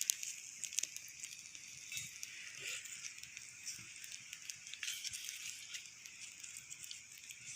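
Campfire crackling faintly: scattered small pops and ticks over a steady soft hiss.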